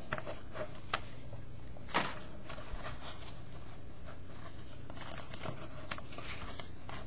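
Trading cards handled by hand and flipped through, giving a few faint scattered swishes and clicks of card against card over a low steady hum.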